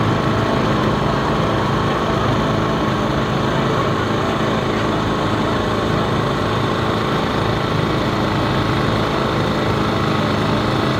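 A small engine running steadily: an even, unchanging hum with a constant low drone.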